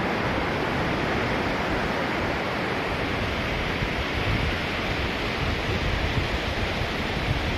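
Steady rush of sea surf on a beach, mixed with wind. Wind buffets the microphone with uneven low rumbling from about halfway through.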